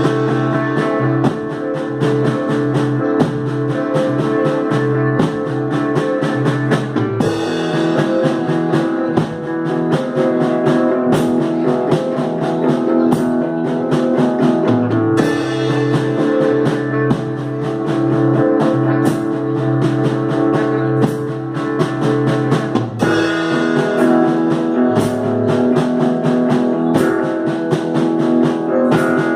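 Live instrumental psychedelic rock: electric guitars over a bass line and steady drum kit, the phrase repeating in sections about every eight seconds.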